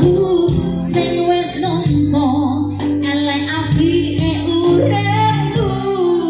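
A woman singing live into a handheld microphone over a live band with keyboard and electric guitar, amplified through a stage PA. She holds several long notes.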